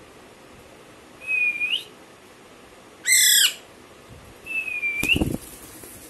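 Young Alexandrine parakeet calling: a short whistled note that rises at its end, then a loud harsh screech about three seconds in, then another rising whistle. A thump follows near the end.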